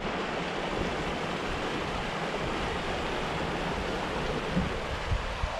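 Mountain creek flowing over rocks: a steady rush of running water.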